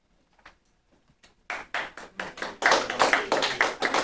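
A small group clapping, starting about a second and a half in: a short spell of applause for a finished presentation.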